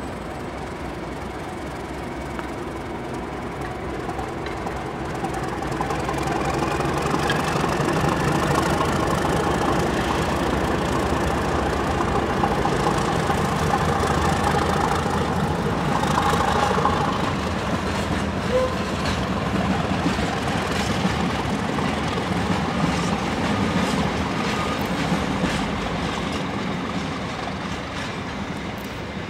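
Class 31 diesel locomotive 31190 (D5613) passing with a train of open box wagons, its English Electric diesel engine growing louder about five seconds in and staying loud through the middle. The sound fades as the wagons roll by near the end.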